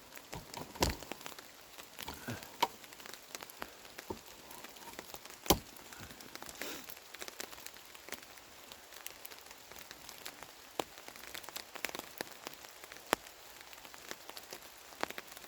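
Rain pattering steadily over a small crackling campfire, with scattered sharp snaps. The loudest snap comes about five and a half seconds in.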